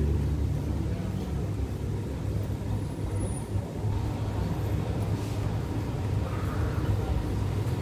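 Diesel engine of a stationary passenger train idling, a steady low rumble.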